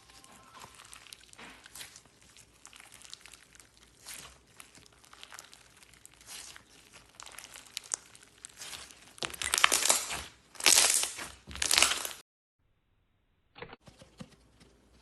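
Slime being squeezed and stretched by hand, giving a crackling, popping sound full of small clicks. Three louder crackling squeezes follow near the end, then a sudden cut to silence, then softer handling.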